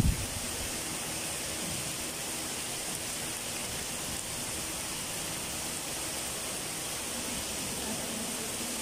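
Steady, even hiss of background room noise, without speech or music.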